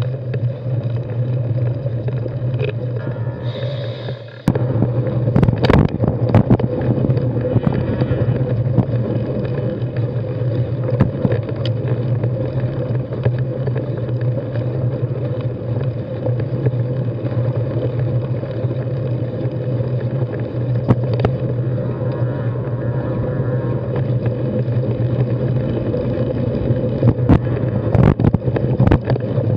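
Mountain bike riding over a dirt and rock singletrack, picked up by an action camera on the handlebars: a steady rumble of tyres and wind, with sharp knocks and rattles as the bike hits rocks, most around five seconds in and again near the end.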